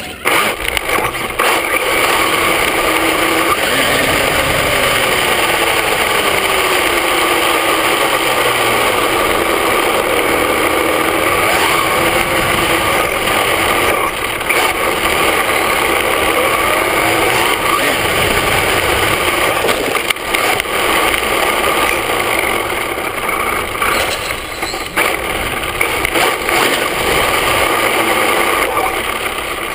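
Onboard sound of an HPI Mini Trophy RC truck running a Velineon VXL-3s brushless system at speed. A steady loud rush of tyre and drivetrain noise on rough pavement, with the motor's whine gliding up and down with the throttle.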